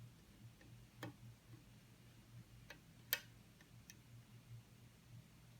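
Faint, sparse metallic clicks of a hook pick and tension wrench working the pins of a Dexter challenge lock cylinder, about four clicks, the sharpest about three seconds in, over a low steady hum.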